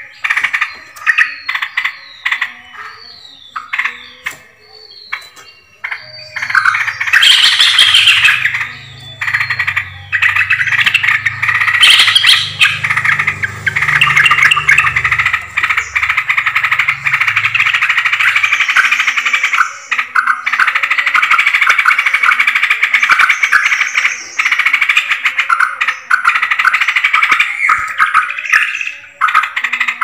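Yellow-vented bulbuls calling: a string of short falling notes for the first several seconds, then a loud, dense chattering chorus of many birds.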